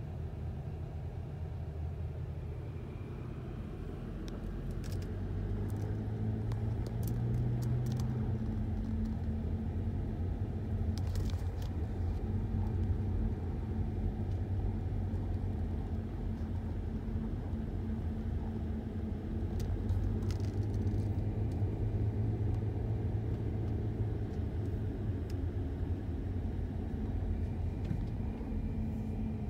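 Car engine and road noise heard from inside the cabin while driving slowly: a steady low hum that gets somewhat louder about five seconds in.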